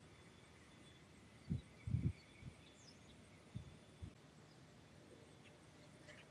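Faint outdoor ambience: a steady insect drone with a few brief bird chirps, broken by several short low thumps about a second and a half, two, three and a half and four seconds in.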